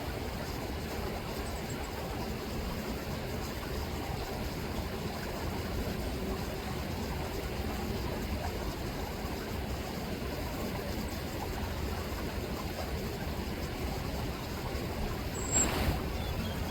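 River water rippling and running in a steady rush, with a brief sharp, high sound near the end.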